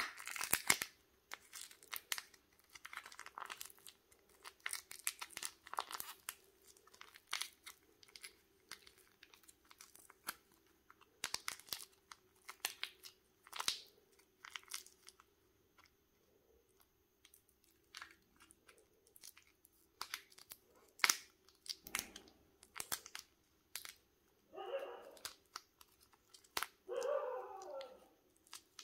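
Plastic and foil wrapper of a candy surprise egg being crinkled, torn and peeled open by hand: irregular rustles and small clicks, with two longer scratchy bursts near the end.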